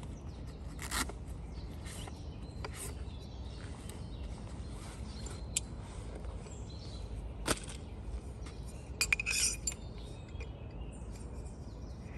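Fishing gear being handled, a padded case and plastic tubes: scattered sharp clicks and knocks, with a brief cluster of rattling clicks about nine seconds in.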